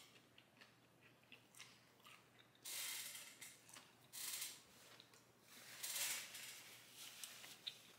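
Quiet crunchy chewing of crisp, lightly fried Brussels sprouts, heard as a few short bursts with small clicks between. A paper napkin rustles against the hands near the end.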